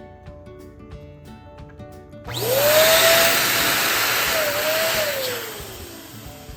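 Electric balloon inflator switching on about two seconds in, blowing air with a motor tone that rises, holds and then slides down as it winds off near the end, over background music.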